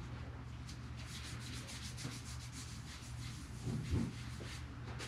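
Faint rubbing and scuffing, a string of soft scratchy strokes over a steady low hum, with a brief louder low thump about four seconds in.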